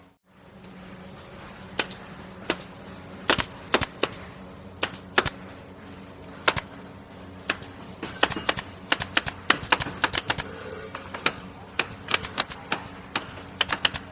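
Pneumatic nail gun (air nailer) firing repeatedly: sharp snaps at irregular intervals, sometimes two or three in quick succession, over a steady low hum.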